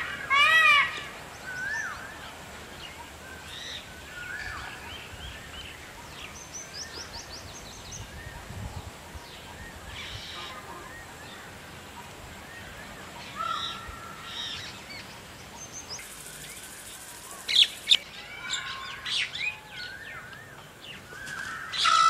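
A male Indian peafowl gives one loud, ringing call about half a second in. Small birds then chirp and twitter faintly in the background, with a few sharper chirps near the end.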